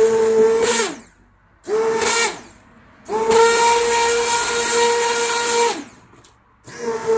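Immersion hand blender running in bursts in a pot of cooked tomatoes, puréeing them: a steady high motor whine that drops in pitch as it winds down each time it is released, four runs in all, the longest about three seconds in the middle.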